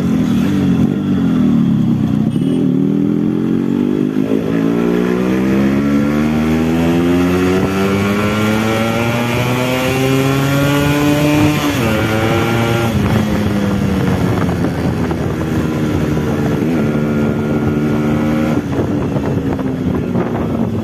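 Yamaha RX135 motorcycle's single-cylinder two-stroke engine running. Its pitch climbs steadily for about ten seconds, drops suddenly, then eases down and settles into a steady run.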